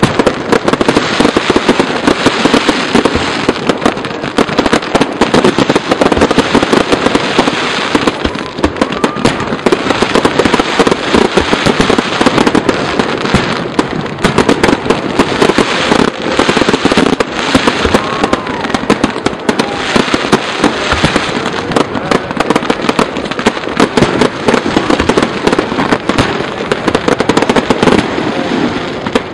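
Aerial firework shells bursting at a fireworks show: a loud, dense, unbroken run of overlapping bangs and crackling.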